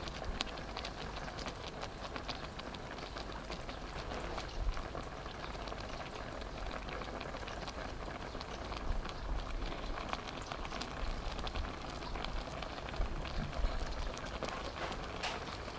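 Suki soup in a stainless steel pot simmering on the burner, a steady crackling patter of small bubbles under the vegetables and ham, with a few louder pops.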